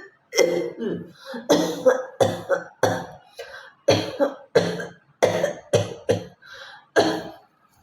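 A woman coughing again and again in a quick run of short, deliberate coughs, about two a second.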